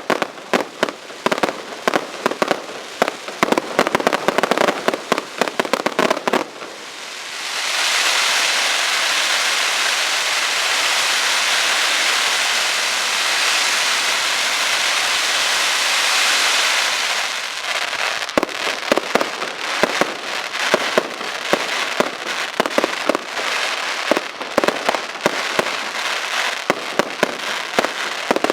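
Aerial fireworks display: rapid volleys of bangs and cracks, giving way about seven seconds in to a dense, steady hiss that lasts around ten seconds, then rapid bangs again.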